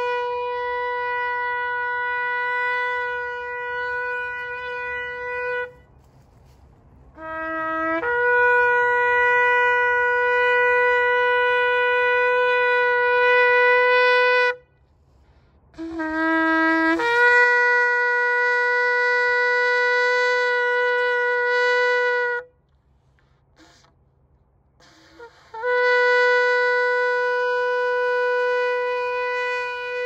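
A long, spiralled Yemenite-style shofar sounding four long, steady blasts, with short breaks between them. Each of the last three blasts begins with a brief lower note that jumps up to the held pitch.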